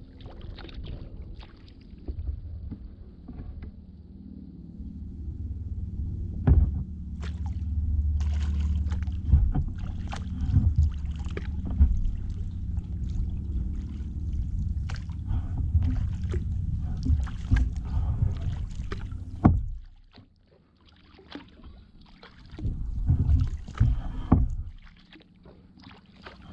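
Kayak paddling: the paddle blades dip and splash in irregular strokes over a steady low rumble, which drops away about twenty seconds in, leaving a few louder splashes near the end.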